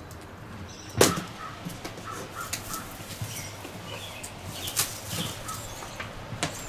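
A cardboard box being opened and its packaging handled: one sharp, loud tearing or snapping sound about a second in, then scattered clicks and rustles. Birds call faintly in the background.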